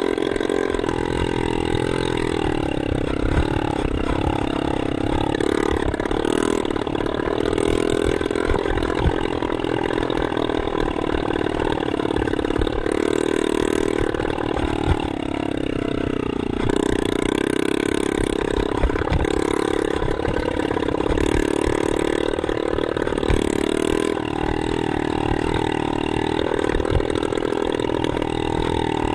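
Enduro dirt bike engine running under way, its pitch rising and falling as the throttle is opened and closed, with a few sharp knocks.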